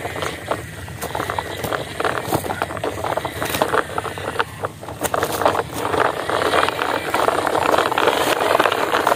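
Plastic toy truck rolling over dry, cracked dirt: a busy crackle and crunch of its wheels on grit and twigs, louder in the second half.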